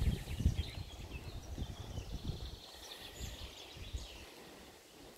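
Small birds singing in the background, with irregular low thumps and rumbles that fade out in the second half.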